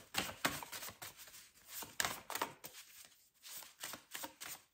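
Tarot deck being shuffled by hand: an irregular run of short card slaps and swishes, a few a second.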